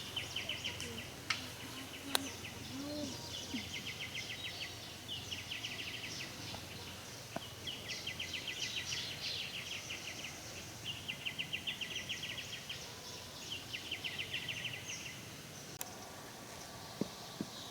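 A high, rapid pulsing trill from a bird or insect, repeated in about six bursts of roughly a second each, every two to three seconds, over faint outdoor background noise.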